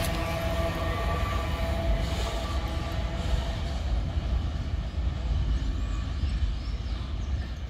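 Container flatcars at the rear of a freight train rolling away, a steady low rumble of steel wheels on rail with a thin squeal that dies out about halfway through, the whole slowly fading.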